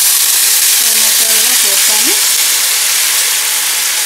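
Tomato wedges hitting hot oil in a small frying pan and sizzling loudly. The sizzle starts suddenly just before and eases slightly over the next few seconds.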